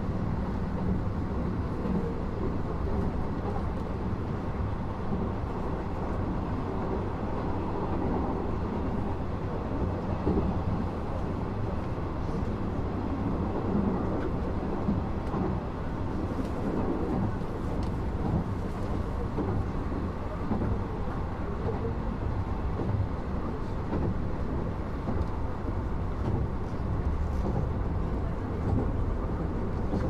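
Nishitetsu Tenjin Ōmuta Line limited express train running, heard from inside the passenger car: a steady low rumble of wheels on rails and running gear, with an even hiss above it.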